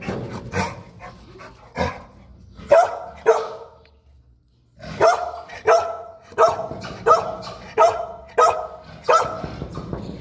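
Young pit bull-type dog barking: a few scattered barks, a short pause, then a steady run of barks about three every two seconds.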